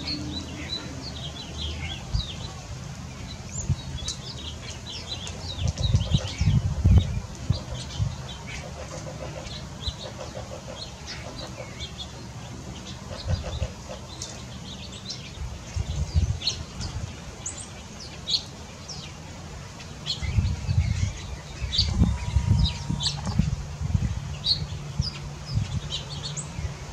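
Small songbirds chirping and calling: many short, high chirps scattered throughout, over a steady low hum with several bursts of low rumble.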